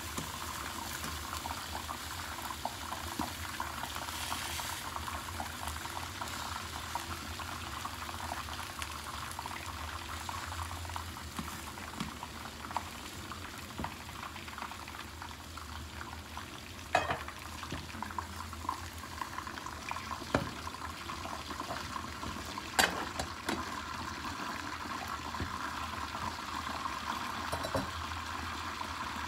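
Egg omelette frying in oil in a pan: a steady sizzling crackle. A few sharp clicks stand out past the middle.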